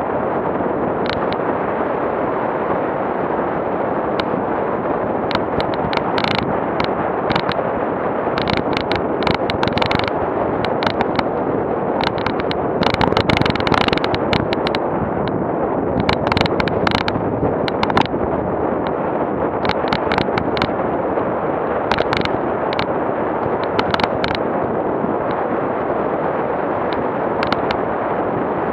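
Off-road vehicle driving on a rough dirt track: steady road and wind noise with frequent sharp knocks and clatters as it goes over bumps and loose stones, busiest in the middle stretch.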